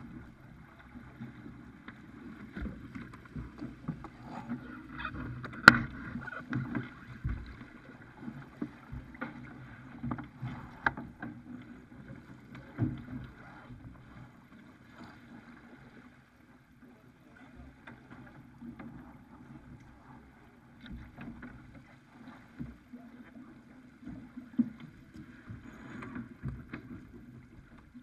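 Farr 280 sportsboat under sail: water rushing along the hull and wind, with scattered knocks and clicks from the crew moving on deck and handling lines, the loudest knock about six seconds in.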